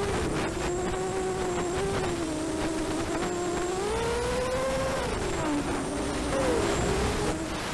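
Diatone ET200 quadcopter's 1806 brushless motors and 5045 propellers whining in flight, the pitch rising and falling with the throttle, with a rise about four seconds in and a drop about a second later.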